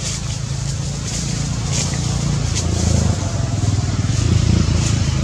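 A motor vehicle engine running with a steady low drone that grows louder about two seconds in, with faint high ticks scattered over it.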